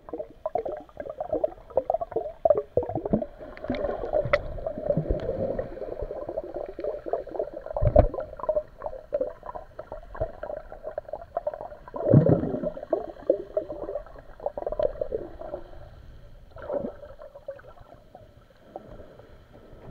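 Muffled underwater sound through a camera's waterproof housing: water gurgling and bubbling, with many short knocks and clicks. The loudest thumps come about eight and twelve seconds in, and it grows quieter near the end.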